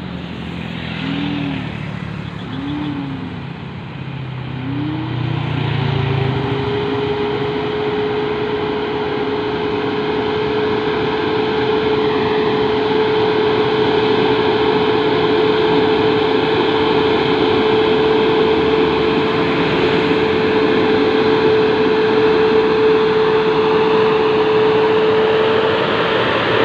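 American heavy diesel trucks, a Halliburton service truck in the lead, labouring up a hill and growing steadily louder as they come closer. In the first few seconds there are three short rises and falls in engine pitch. About six seconds in, a pitch climbs and then holds as one steady engine tone.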